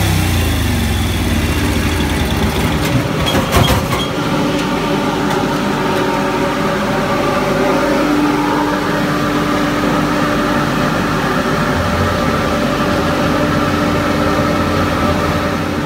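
A 1942 Harley-Davidson WLA's 45-cubic-inch flathead V-twin running at low speed on a chassis dynamometer just after a power run. There are a few clicks about three and a half seconds in, and a steady whine joins about eight seconds in.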